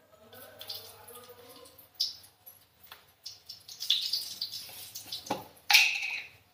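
Dal being tempered in a kadai: scattered clinks and scrapes of utensils, then about five and a half seconds in a loud burst of sizzling that dies away over about a second.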